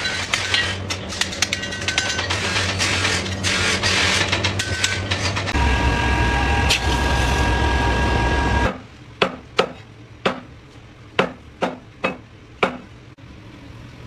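Rapid hammer blows on a red-hot cleaver blade on an anvil, over a steady low hum. About five seconds in, this gives way to a machine running steadily for about three seconds. Then, at a lower level, come about nine sharp chops of a cleaver striking meat and bone on a chopping board.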